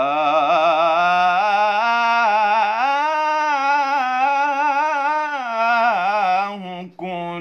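A young man's solo voice singing an Islamic ibtihal (devotional ode), unaccompanied, drawing one word out into a long melismatic phrase with wavering ornaments. The phrase climbs to a higher held note in the middle and falls back. It breaks for a breath just before the end, and the next phrase begins.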